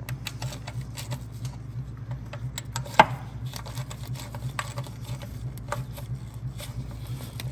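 Quarter-inch drive ratchet clicking in short strokes as the thermostat housing bolts are snugged down with even turns, with one sharper knock about three seconds in, over a low steady hum.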